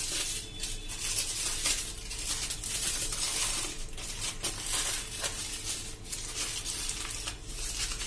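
Aluminium foil crinkling and crackling in irregular bursts as hands fold and press it tightly around a banana.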